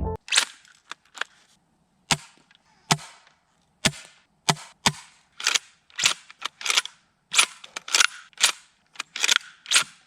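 Sharp cracks and clacks from a Double Bell Kar98K shell-ejecting gas airsoft rifle being fired and cycled. There are about twenty short reports and clicks, many in close pairs, with dead silence between them.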